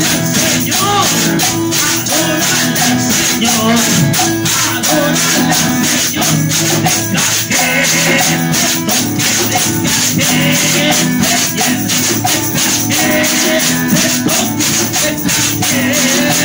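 Live upbeat worship chorus: a man singing into a microphone over electric guitar, with rattling hand percussion keeping a steady, even beat.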